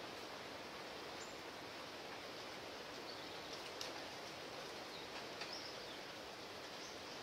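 Steady outdoor background hiss with a few faint, short bird chirps and a couple of light clicks.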